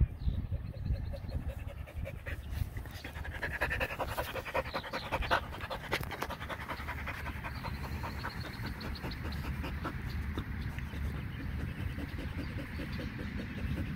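Border collie panting in quick, even breaths close to the microphone.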